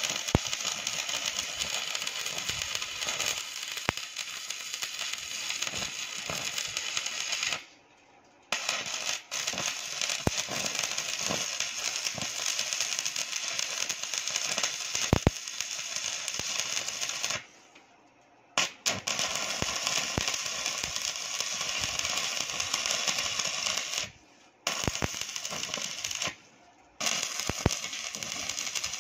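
Stick (arc) welding on steel: the steady crackling sizzle of the electrode arc, stopping and restarting four times as the arc is broken and struck again, with a few sharp clicks.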